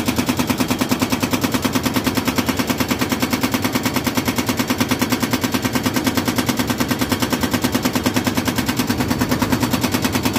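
Excavator-mounted hydraulic breaker hammering on concrete, a rapid, even rattle of blows that goes on without a pause as it breaks up hard concrete.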